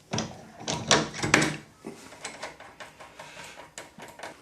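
Metal workshop tools and parts being handled and set down: a run of sharp knocks and clicks, loudest in the first second and a half, then lighter clicks.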